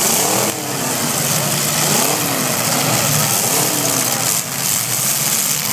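Several demolition derby car engines revving over and over, their pitch rising and falling and overlapping, over a steady hiss.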